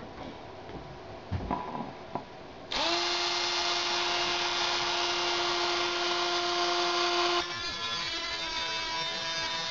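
Dremel rotary tool with a cutoff wheel switched on about a quarter of the way in, running at a steady high whine. For the last couple of seconds the whine drops a little and wavers as the wheel cuts into thin steel sheet from a computer case.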